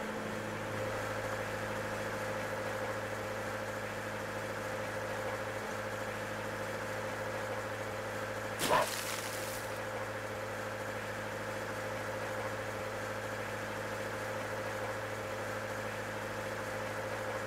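A boat's engine running steadily at idle, a low, even hum. About nine seconds in comes one short burst of noise.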